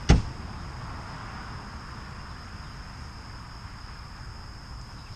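Insects droning steadily at one high pitch, with a single sharp knock just after the start.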